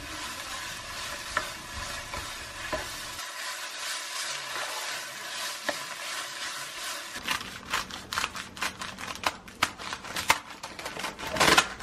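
Kimchi sizzling in a frying pan with sesame oil as it is stirred with a wooden spatula. About seven seconds in, this gives way to scissors snipping through a crinkly plastic-foil seasoned laver bag, a run of sharp crackles and snips, loudest near the end.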